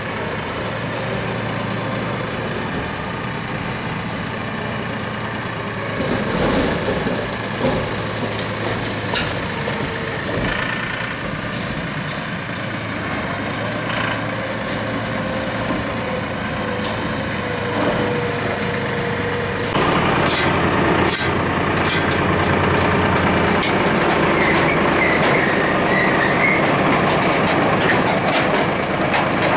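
Tractor engine running steadily, then getting louder about two-thirds of the way through as it comes under more load, with scattered sharp cracks over it.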